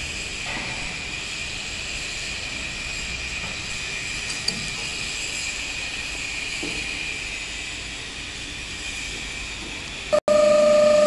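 Magnetic blade grinder for woodworking knives running: a steady machine hum with hiss and a constant high whine. Near the end the sound breaks off for an instant and a louder, lower steady whine takes over.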